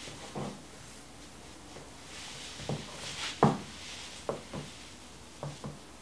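Casadei Blade high-heeled pumps stepping on a hard floor: about seven irregular heel clicks, the loudest about three and a half seconds in, with clothing rustling softly between about two and four seconds in.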